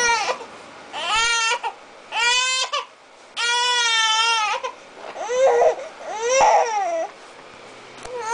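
Young baby fussing and crying in about six short wails, with a longer one in the middle.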